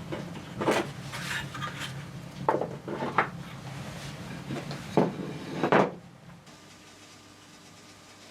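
A series of knocks and clattering of hard objects being handled, about seven in all, over a steady low hum. The hum cuts off suddenly about six seconds in, leaving only a faint hum.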